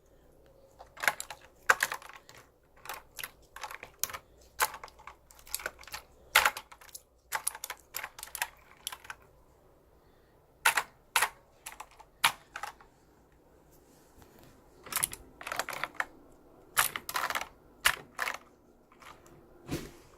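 Computer keyboard keys clacking irregularly in short clusters, with pauses of a second or more, as the keys are pressed down while the keyboard is cleaned with a jelly cleaner.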